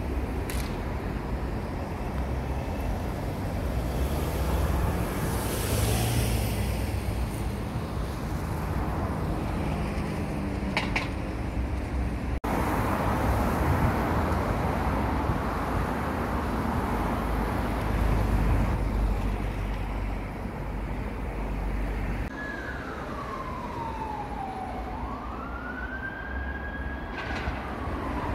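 Street traffic noise, with an emergency-vehicle siren wailing over it in the last few seconds, its pitch sweeping down, then up, then down again.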